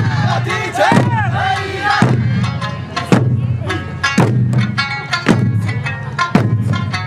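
Eisa music: taiko drums struck together about once a second over a sung melody, with group shouts in the first second.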